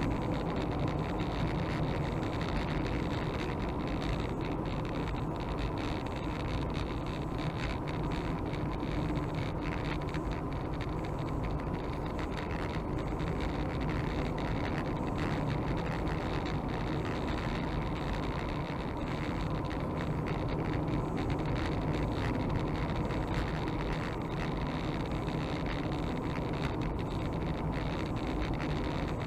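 Steady engine and tyre noise of a car driving along a sealed road, heard from inside the cabin.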